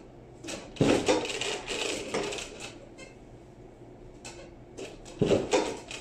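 Knocks and handling noise as a garment is laid out on a steam ironing press, then a second cluster of knocks near the end as the press lid is brought down.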